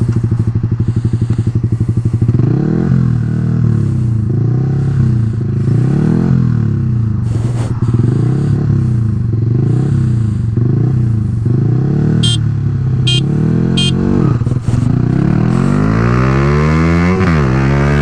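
Yamaha R15 V3 155 cc single-cylinder sport bikes, one with an aftermarket Daytona exhaust, idling and then blipped repeatedly, the revs rising and falling over and over. Three short high beeps sound about two-thirds of the way in. Near the end the bikes launch: the engine pitch climbs hard, drops at an upshift, and climbs again.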